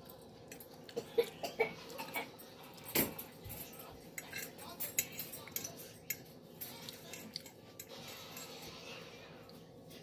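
Metal fork clinking and scraping against a ceramic dinner plate as salad is speared from it: a scatter of small sharp clicks, the sharpest about three seconds in.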